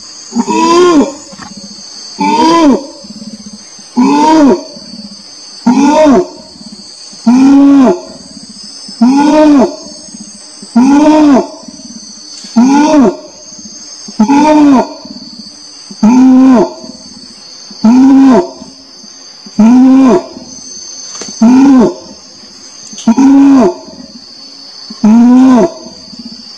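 Orangutan giving a series of loud calls, about one every 1.8 seconds, each call rising and then falling in pitch. A steady high insect buzz runs underneath.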